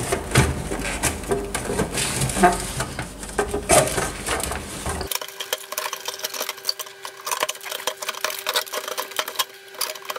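Metal valve-radio chassis being slid out of its cabinet by hand: an irregular run of knocks, clicks and scrapes as it moves and is handled. A faint steady hum appears about halfway through.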